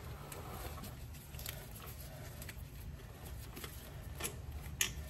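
Scattered light clicks and clinks of hand tools and metal parts being handled on an engine, with one sharper click near the end, over a steady low hum.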